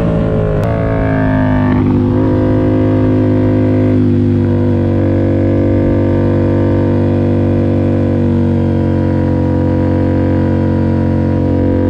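Yamaha MT-07's parallel-twin engine through a full SC-Project CRT exhaust, its revs falling as the bike slows in third gear over the first two seconds, then holding a steady drone at part throttle through the bend.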